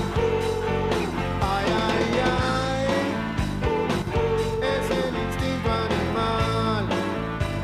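Urban rock song playing, with a male lead vocal over electric guitars, bass, keyboard and drums.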